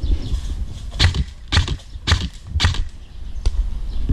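Footsteps of a person walking quickly or jogging, about two steps a second, over a steady low rumble of movement on the microphone.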